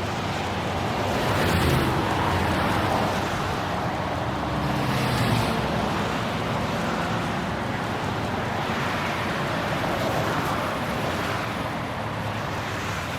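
Road traffic: a steady rush of tyre and engine noise from passing vehicles, swelling as vehicles go by about two and five seconds in.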